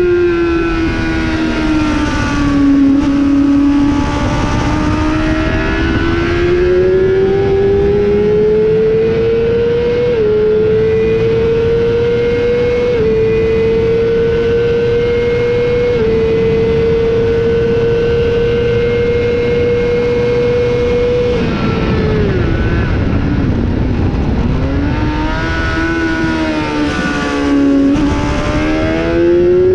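Honda CBR600RR inline-four engine heard onboard at racing speed. It pulls hard with two quick upshifts, then holds at high revs down the straight. About 21 seconds in it drops sharply under braking with downshifts, then picks up again on the throttle out of the corner. Wind rushes under it throughout.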